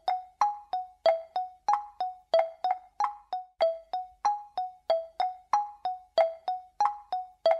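Background music: short, quickly fading keyboard notes, about three a second, stepping up and down between a few neighbouring pitches in a simple repeating pattern.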